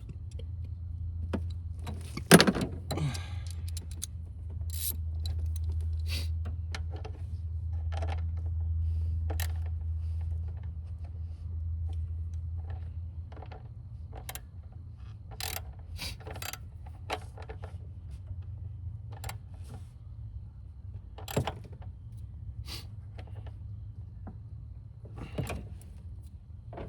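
Metal hand tools clicking and clinking against bolts and engine parts while the fuel line's banjo bolt is screwed back in, with one loud metallic clank about two seconds in. A steady low hum runs under the first half and fades out.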